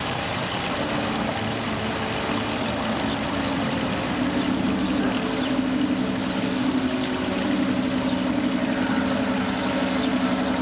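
Small waterfall splashing over rocks, with the steady hum of a model diesel train's motor and gears growing louder as the train approaches.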